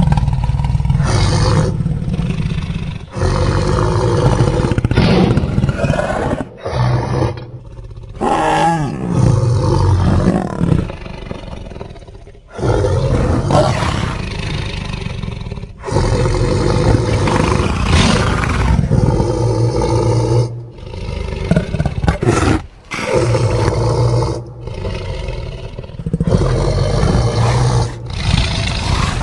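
Giant piranha creature sound effects: a run of loud, rough roars and growls, each lasting a few seconds, with short breaks between them.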